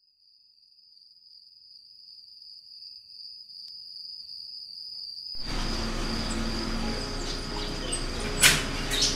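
A steady high-pitched whine fades in. About five seconds in, room noise with a low hum starts suddenly as three-day-old puppies shuffle together, and a short sharp sound comes near the end.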